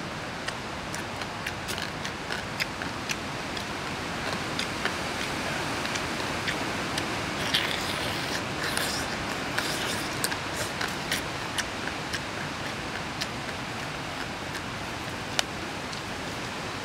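Close-up eating sounds: sharp clicks, crunches and mouth smacks as a man tears apart and chews cooked bullfrog meat and small bones, busiest around eight to eleven seconds in. A steady hiss lies under everything.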